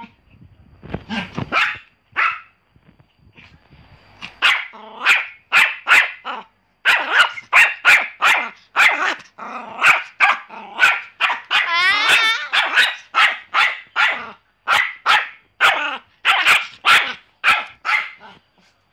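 Pomeranian barking, short sharp barks in a quick run of about two a second, with one longer wavering yelp about two-thirds of the way through.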